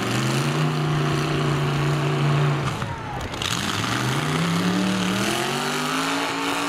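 Demolition-derby pickup truck engine revving hard with a steady pitch, then dropping off about three seconds in and climbing steadily again as the truck accelerates across the mud.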